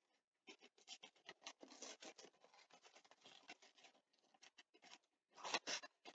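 Faint rustling and crackling of a paper sugar bag as a measuring cup is scooped through granulated sugar, with a slightly louder rustle near the end.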